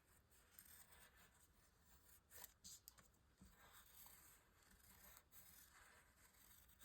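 Near silence with a few faint scratches of a brown Stabilo pencil drawn on paper.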